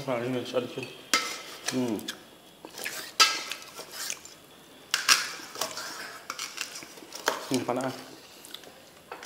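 Large knife chopping grilled meat on a wooden cutting board: irregular sharp knocks of the blade against the board. Short bits of a voice come through near the start and again around 2 and 7.5 seconds in.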